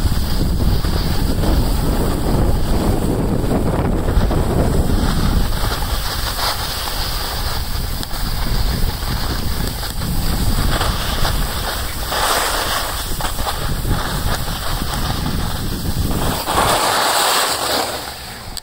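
Wind buffeting the microphone while moving down a groomed ski slope, with the hiss of edges scraping on packed snow, loudest in two stretches about twelve seconds in and near the end. The wind rumble falls away near the end as the movement slows.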